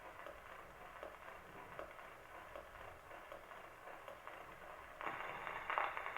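Surface noise of a shellac 78 rpm record turning before the music: a steady hiss with small scattered clicks and crackles. About five seconds in it grows louder as the recording itself begins.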